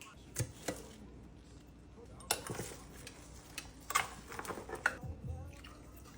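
Kitchen utensils clinking and knocking against a slow cooker pot: a handful of sharp, irregular clacks.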